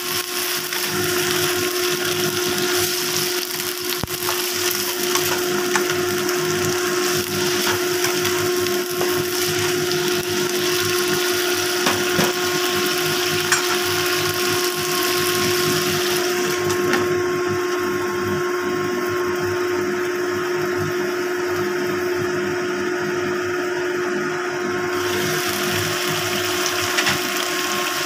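Steady whir of a running motor with a constant hum, over the sizzle of flowering chives and black fungus frying in a wok. The hiss thins for several seconds past the middle.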